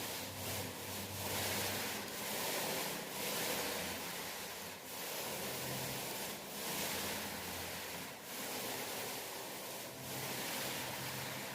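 Paint roller being rolled up and down a wall, a repeated wet hiss that swells with each stroke and breaks briefly between strokes about every second and a half to two seconds.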